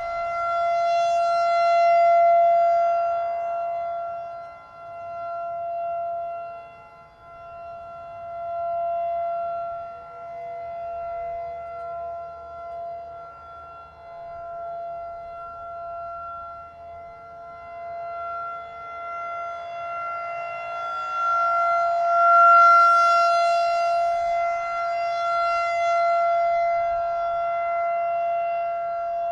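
Federal Signal 2001-DC outdoor warning siren sounding a steady full-alert tone. Its pitch holds constant while the loudness swells and fades every few seconds as the rotating horn sweeps past.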